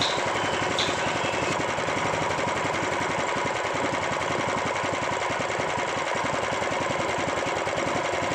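Honda GX390 single-cylinder four-stroke engine running steadily with a rough, rattling knock through its fast, even beat, which the mechanic suspects comes from a worn bearing.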